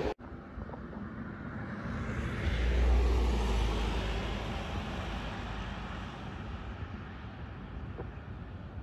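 Road traffic noise from a passing car, with a low rumble that swells about two and a half seconds in and then slowly fades.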